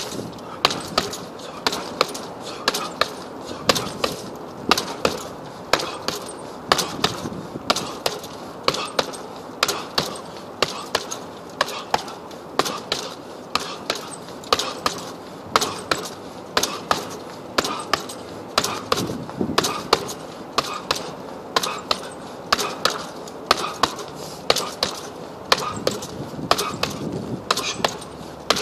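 Fists landing on a hanging heavy punching bag: a steady run of sharp thuds, about two a second, kept up without a break.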